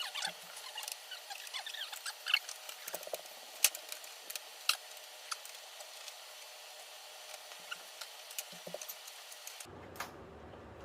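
Scattered light clicks and scratches of small plastic and metal parts being handled while a flat-screen TV is taken apart, with a few sharper clicks. The background changes abruptly near the end.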